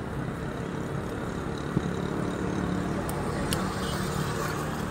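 Steady rumble of road traffic around an open-air street-food stall, with a few short sharp clicks partway through.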